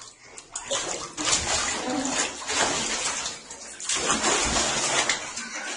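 Water running and splashing in a bathtub while a cat is washed in it.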